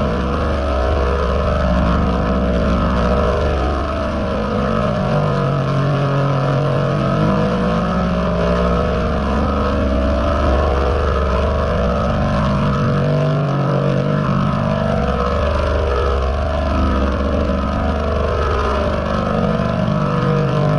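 A "G Major"-style audio-effect edit: a sound heavily layered, pitch-shifted and distorted into a loud, dense rumbling noise. Low droning tones come and go every few seconds.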